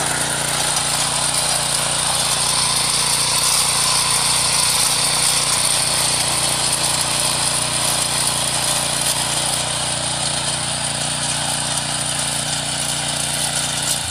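MH610 power weeder's small air-cooled engine running steadily under load as its rotary tines churn through the soil.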